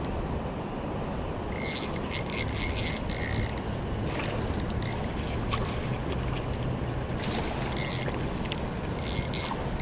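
Spinning reel being cranked while fighting a hooked smallmouth bass, its mechanism ratcheting in intermittent bursts, over a steady rush of river current.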